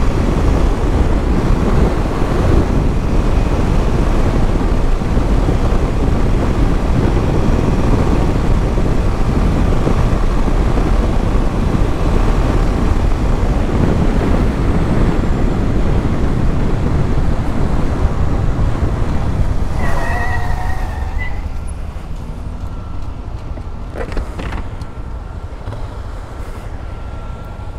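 Yamaha Lander 250 single-cylinder motorcycle ridden at high speed, with heavy wind rush on the microphone over the engine. About three quarters of the way through it slows down and the noise drops, with a brief wavering high tone just before.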